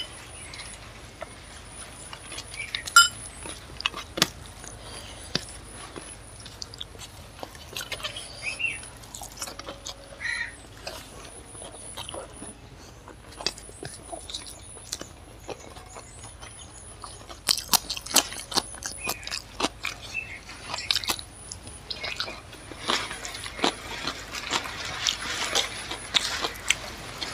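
Close-up eating sounds: chewing and wet mouth clicks as rice and chicken curry are eaten, with fingers mixing rice on a steel plate. The clicks come thick and loud in the second half, with one sharp click about three seconds in.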